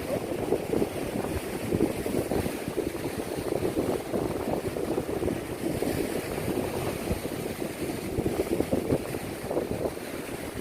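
Wind buffeting the microphone in a continuous, rough rumble, with the rush of ocean surf behind it.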